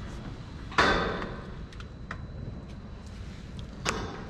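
Two sudden knocks, about a second in and again near the end, each ringing on briefly in the hard-walled milking parlour, with a few faint clicks between them.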